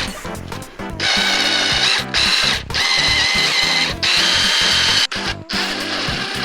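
Power drill running in about four bursts of roughly a second each, a steady whine, as a drill bit bores into the centre of a snapped bolt. Background music plays underneath.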